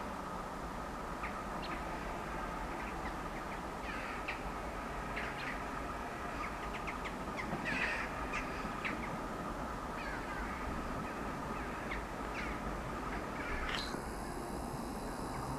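Crows cawing repeatedly at irregular intervals over a faint steady hum. Near the end the sound changes abruptly with a click and a high hiss.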